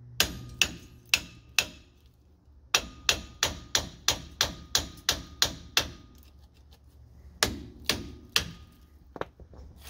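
Hammer blows on a Ford Bronco's front brake caliper, knocking it loose from its mount. Four strikes, a short pause, a quick run of about ten strikes at roughly three a second, then a few more spaced-out strikes near the end.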